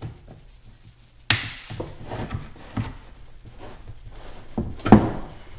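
Scattered knocks and clicks of metal tools and the steel drive shaft against a wooden workbench as a split pin is worked out of an outboard drive shaft with vice grips. A sharp click about a second in and a heavier knock near the end are the loudest.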